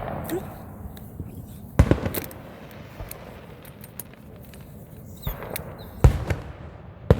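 Fireworks going off: a loud bang about two seconds in and two more close together near the end, with scattered smaller crackles between them.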